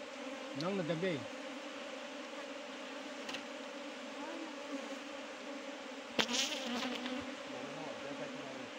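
A cluster of honey bees on their open comb, humming steadily. A brief rustling noise comes about six seconds in.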